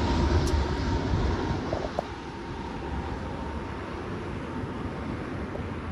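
Airbus A330 jet engines on final approach passing close, a low rumble that drops off about two seconds in as the airliner moves away toward the runway.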